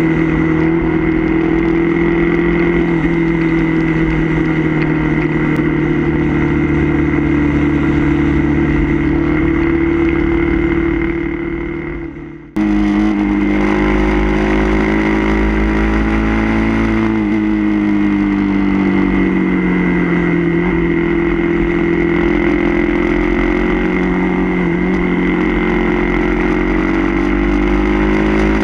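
Suzuki DR-Z400 supermoto's single-cylinder four-stroke engine running at steady revs on the move, with wind noise underneath. About twelve seconds in the sound fades out and cuts straight back in; the engine note then falls and later climbs again as the throttle is eased off and reopened.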